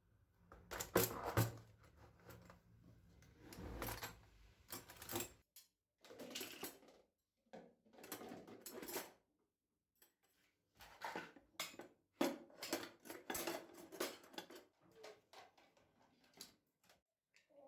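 Kitchenware being handled: dishes and metal utensils clinking and clattering in irregular bursts, with short pauses between them.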